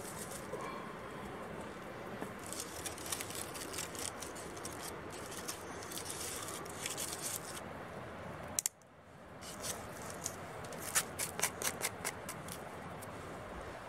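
Aluminium foil crinkling and crackling as a foil-wrapped baked potato is unwrapped, then light scratching and rubbing of fingers on the potato's skin, over a steady background hiss that drops out briefly past the middle.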